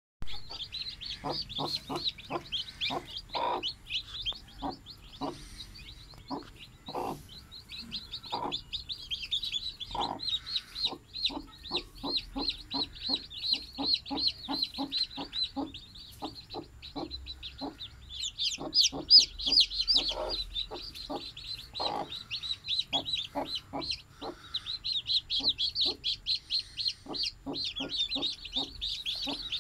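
Newly hatched chicks peeping continuously and shrilly, over a broody hen's steady run of short, low clucks. The peeping swells briefly a little past the halfway point.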